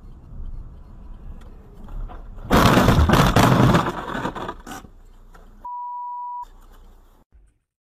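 Road noise, then a loud clatter of snow and ice chunks hitting the car's windshield and body for about two seconds. Near the end comes a single steady beep lasting under a second, and the sound cuts off.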